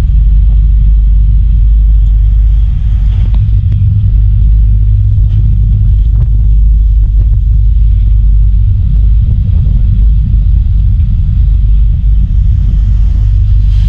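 Catamaran ferry's engines running with a loud, steady low rumble as the vessel manoeuvres to berth.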